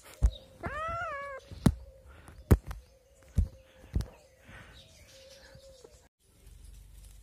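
Kitten meowing once about a second in, a short call that rises and then falls in pitch, among several sharp, louder knocks.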